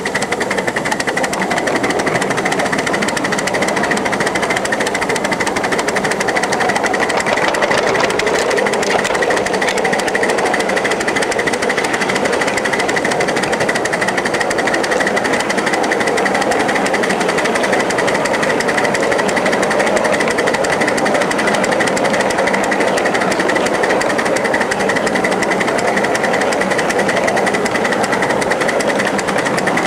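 1-inch-scale live steam 0-4-0 switcher locomotive running along the track, heard from just behind it: a fast, even rattling beat with a steady high tone over it.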